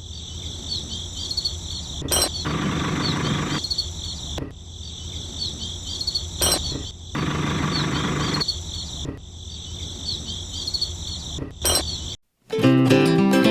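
Insects chirping steadily in a high, continuous trill, with two stretches of harsher rushing noise about a second long each and a few sharp clicks.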